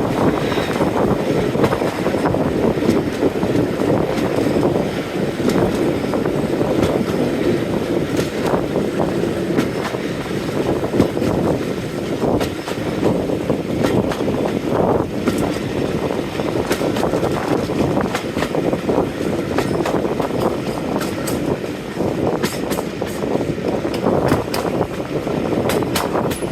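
A train hauled by Class 45 diesel 45108 running along the line. There is a steady rumble with scattered, irregular wheel clicks throughout.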